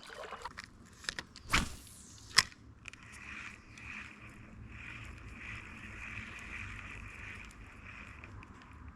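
A cast with a light spinning rod and reel: a quick swish about a second and a half in, then a sharp click. After that the reel is cranked steadily, a soft continuous whir as the minnow lure is retrieved.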